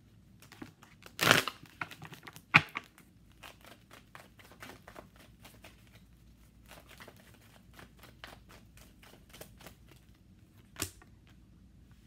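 A deck of tarot cards being shuffled and handled by hand: a quick run of light card flicks and rustles, with a louder rustle about a second in and sharp snaps of the cards a little later and again near the end.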